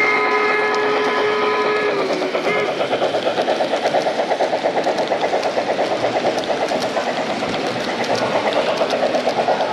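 Sound from a model Union Pacific steam locomotive: a chime steam whistle held until about two seconds in, sagging slightly in pitch as it ends. After it comes a fast, even rhythmic beat of the running train.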